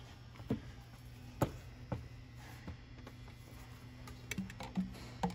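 Several light clicks and taps from handling metal band clamps and the 3-inch intake pipe during fitting, the loudest about a second and a half in, over a steady low hum.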